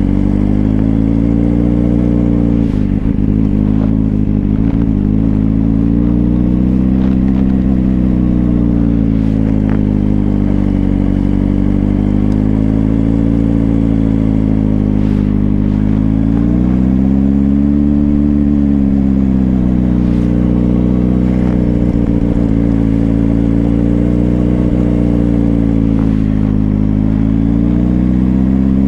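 Suzuki GSR400's inline-four engine through twin Yoshimura exhausts, running at low revs during slow tight turns. Its pitch rises and falls gently as the throttle is eased on and off, with a bigger swell about two-thirds of the way through.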